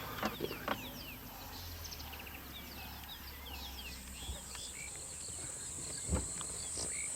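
Bush ambience: many birds chirping, with a steady high insect drone coming in about halfway through and a couple of brief knocks near the end.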